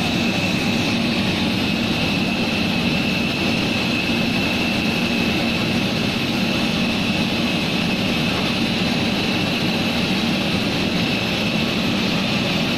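Steady jet airliner turbine noise on the apron: a continuous rumble with a constant high-pitched whine.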